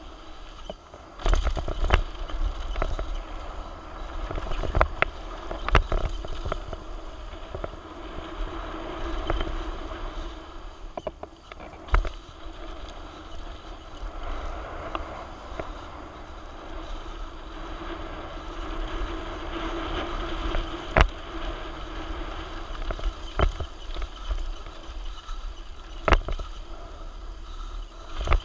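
Mountain bike descending a rough dirt trail, heard from a camera mounted on the rider or bike: continuous tyre and wind noise with a low rumble on the microphone, broken by frequent sharp knocks and rattles as the bike hits rocks and bumps.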